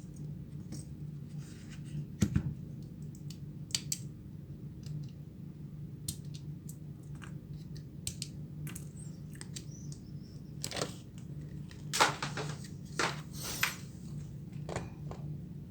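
Scattered small clicks and short scrapes of hand tools working on a smartphone as it is taken apart for repair, over a steady low hum.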